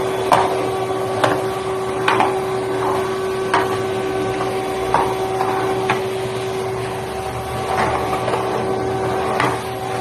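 A steady machine hum, with irregular knocks and clatter of things being handled every second or so.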